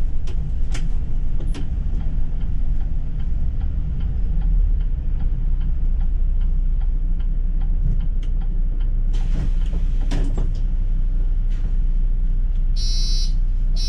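City bus running with a steady low rumble, small rattles and clicks. A brief hiss comes about nine seconds in, and near the end an electronic beeper sounds twice in quick succession.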